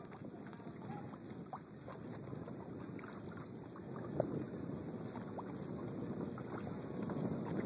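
Water swishing and lapping around a paddled canoe, growing louder, with a few light clicks and one sharper knock about four seconds in.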